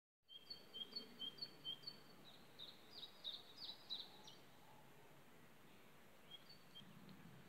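Faint birdsong: a songbird's quick series of short high chirps, then a run of rapid downward-sliding notes, with a couple more chirps near the end.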